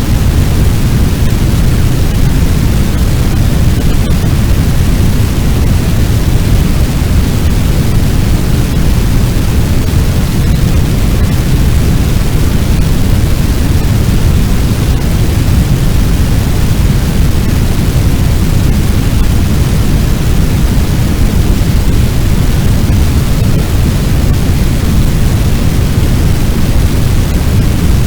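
Fire sound effect: a loud, steady deep rumble of noise, like a large blaze, with no distinct crackles or pops.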